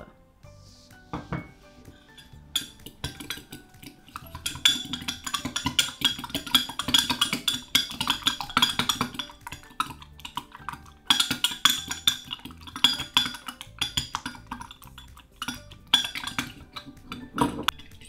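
A metal fork whisking egg and brown sugar in a glass mug: rapid clinking of the tines against the glass. It starts a couple of seconds in and breaks off briefly a few times, over background music.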